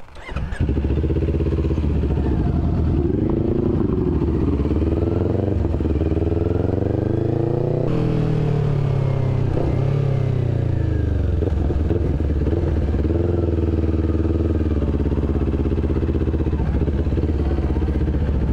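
Parallel-twin sport motorcycle engine running, cutting in sharply about half a second in. The revs rise and fall, climbing to a peak near the middle, easing back, then holding fairly steady.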